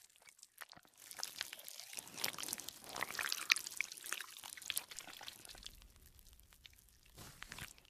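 Faint, scattered crackling and small wet ticks of a marker nib pressed on paper as ink seeps out around the tip. The crackles are busiest in the middle and die away near the end.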